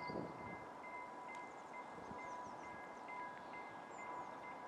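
Faint electronic ringing from a trackside warning signal: a steady tone with a chime repeating about twice a second, as a train approaches in the distance.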